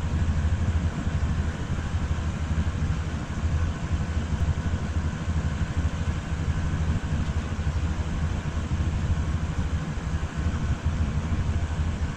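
Boom lift engine running at a steady idle, a constant low hum that does not change speed.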